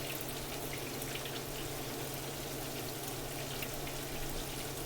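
Water running steadily from a kitchen tap as something is rinsed clean: an even splashing hiss with a low hum under it.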